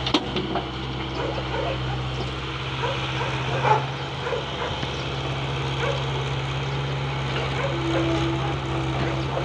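JCB tracked excavator's diesel engine running steadily under load as the machine dumps soil into a truck and digs, with a brief higher whine near the end. Short sharp sounds come now and then over the engine.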